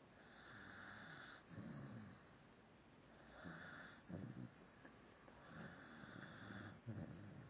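Faint snoring in slow, regular breaths, three in all, about every two and a half seconds. Each breath has a soft hiss and a low, rough rattle.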